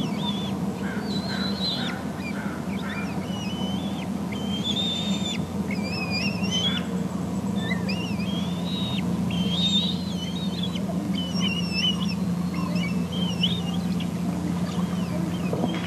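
Eaglet begging calls: a long string of high, thin, wavering whistled chirps, many short notes in quick succession, over a steady low hum.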